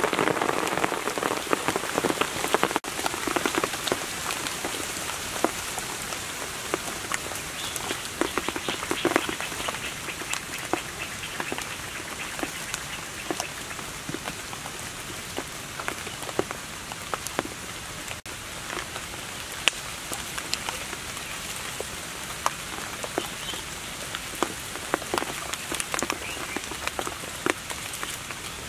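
Steady rain pattering on forest leaves, with scattered louder drips. It is a little louder in the first few seconds, then settles.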